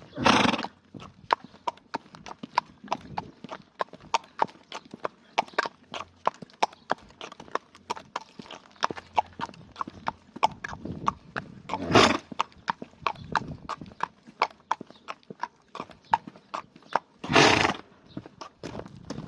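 A horse's hooves clip-clopping steadily at a walk, with three loud, short snorting blows through the nose: one at the start, one about twelve seconds in and one near the end. The owner wonders whether these are sneezes from hay fever.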